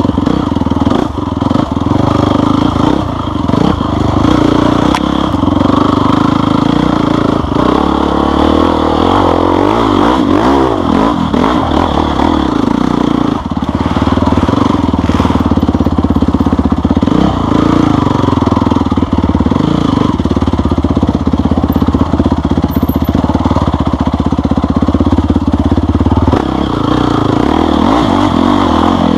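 Off-road vehicle engine running under way on a rough trail, its pitch rising and falling with the throttle, with scattered clattering knocks.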